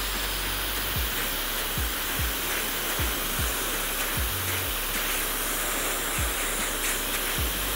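Handheld blow dryer with a concentrator nozzle running steadily, blowing air through a vent brush onto damp hair.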